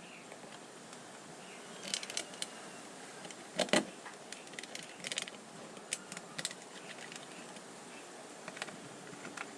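Scattered light clicks and knocks of the table-top wet grinder's wheel, with its newly fitted bearing, being handled and set back into the grinder, with one louder knock a little before four seconds in.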